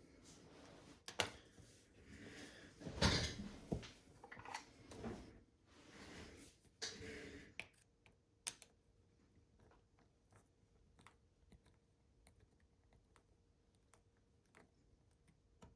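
Small screwdriver working on a plastic car-key shell: faint, irregular scraping and rustling for the first half, then scattered light clicks and ticks.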